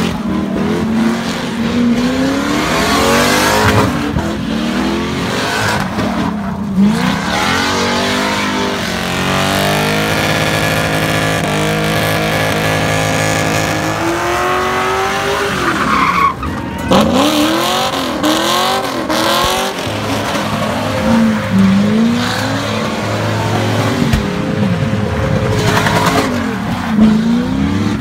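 A car doing donuts: its engine revs up and down again and again over squealing, spinning tyres, and for a few seconds near the middle it is held at steady high revs.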